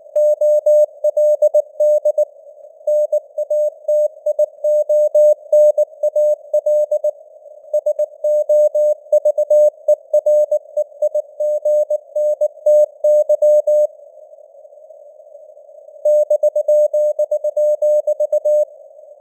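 Morse code (CW) sent at 19 words per minute as a single mid-pitched beeping tone keyed in dots and dashes, over a hiss of simulated radio noise. The sending pauses briefly about a third of the way in and for about two seconds about three-quarters of the way through, leaving only the hiss.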